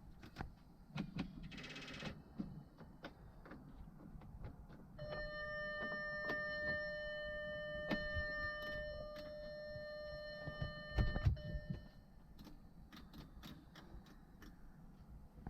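A steady electronic tone with overtones, held for about six seconds, amid scattered light clicks and knocks, with a couple of heavy thumps just before it stops.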